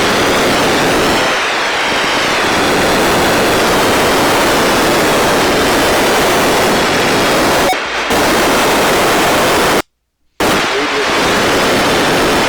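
Loud static hiss from an Icom IC-R20 receiver on a weak FM signal at Family Radio Service frequencies, with a faint voice barely audible under it. The hiss cuts off about ten seconds in, then comes back for a couple of seconds.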